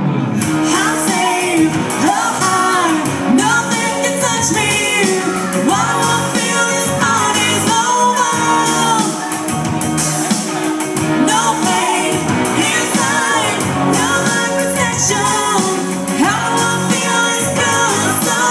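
A woman singing a pop ballad into a microphone over a karaoke backing track, both loud through a bar's PA system.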